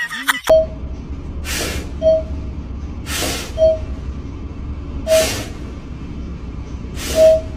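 A small fluffy dog sniffing hard at the crack of a door, making four long hissing snuffles about two seconds apart, with short high squeaks between them.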